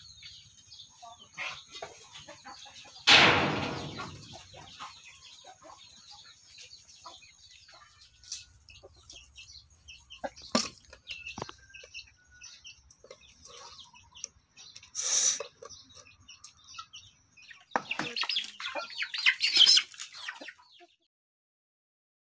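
Chickens clucking, with a faint steady high tone behind them. There is a loud sudden noise about three seconds in and a louder stretch of clucking a couple of seconds before the end.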